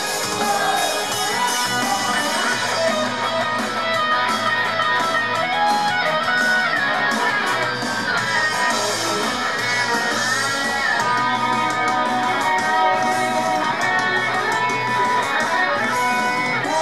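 Up-tempo pop-rock song with a strummed and lead electric guitar, in an instrumental stretch without singing.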